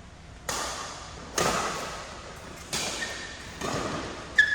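Badminton rally: five sharp racket strikes on the shuttlecock, about a second apart, each echoing in the hall. Shoes squeak briefly on the court floor near the end.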